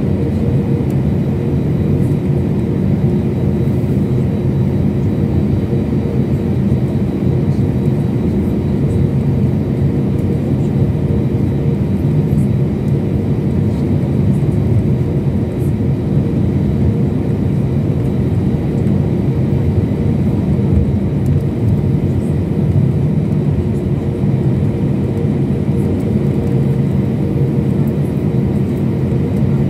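Steady drone of an airliner cabin: engine and airflow noise, low and unchanging, with a faint steady whine above it.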